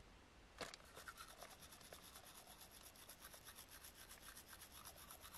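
Faint, rapid, even brushing strokes, about eight a second, after a light knock about half a second in.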